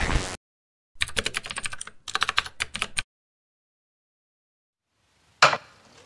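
Keyboard-typing sound effect: two quick runs of key clicks between about one and three seconds in. A short burst of whooshing noise comes at the start, and another sharp one near the end.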